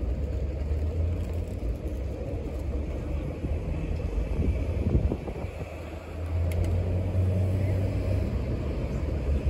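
Low, gusting rumble of wind buffeting the microphone, over a faint murmur of people in the open.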